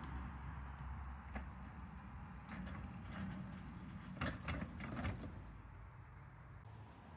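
7¼-inch gauge miniature train rolling slowly along its track: a low rumble with scattered clicks and clanks, a cluster of them a little past the middle, fading near the end.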